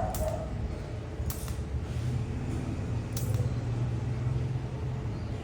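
A steady low machine hum with three sharp metallic clicks, the first right at the start, then about a second in and about three seconds in.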